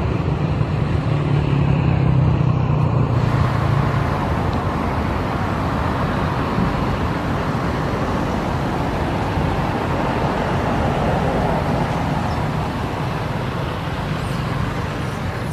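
Steady, loud background noise like road traffic, with a low hum in the first few seconds.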